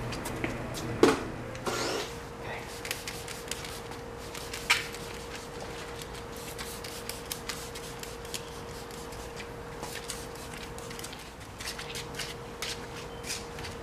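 Microfiber drying towels rubbing and wiping over wet car paint, with scattered sharp clicks throughout and a steady faint hum from about two seconds in.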